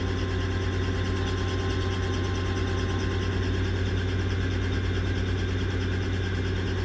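Small helicopter's engine and rotor running steadily on the ground, a strong low hum with overtones that holds at an even level, heard from inside the doors-off cabin.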